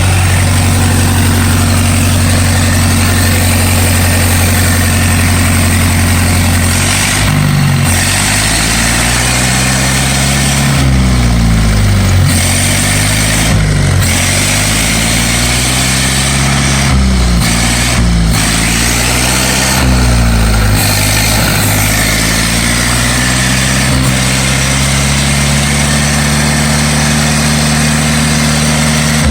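Ford 9N tractor engine converted to steam, running a table saw. It runs at a steady speed, then for about fifteen seconds its speed repeatedly drops and picks back up before it settles again, over a steady hiss.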